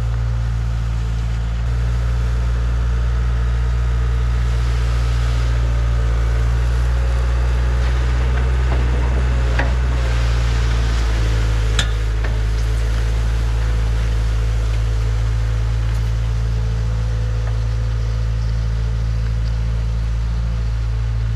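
Skid steer engine running steadily under load as it drags a land plane over asphalt millings, with a gritty scraping of the material and two sharp knocks partway through. The engine steps up a little about a second and a half in.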